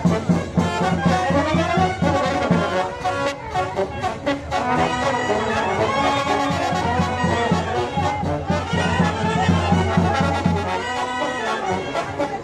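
Romanian village brass band (fanfară) playing: trumpets and trombones carrying the tune over a steady bass drum beat.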